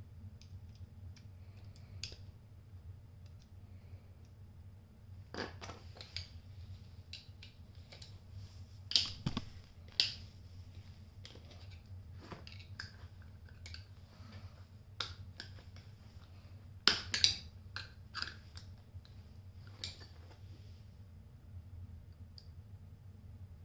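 Screwdriver twisting and prying at the head of a broken hand ratchet: scattered small metal clicks and scrapes, with a few louder clacks about nine seconds in and again around seventeen seconds.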